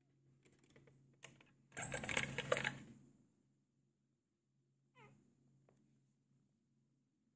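A glass sliding door clicks and then rattles loudly along its track for about a second as it is slid open. About five seconds in a cat gives one short meow.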